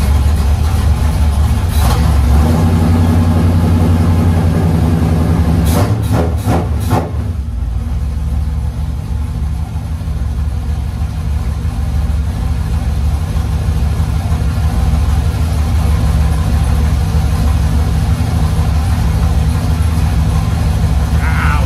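Race car's carbureted V8 idling after being fired up. It runs at a fuller, slightly raised idle for several seconds, a quick run of clicks sounds around six seconds in, and then it settles back to a steady idle.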